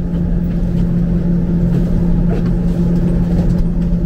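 Streetcar running, heard as one steady electrical hum over a low rumble.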